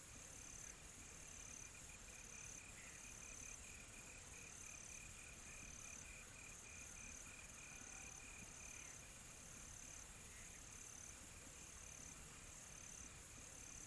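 Faint chorus of singing insects: a steady very high trill, a shorter chirp repeating about once a second, and a lower fast pulsing call at several pulses a second.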